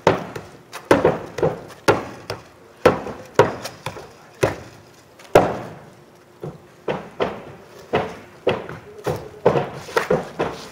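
Roofing hammer blows driving nails through asphalt shingles into the roof deck. The strikes are sharp and irregular, about one to two a second, and come faster in the second half.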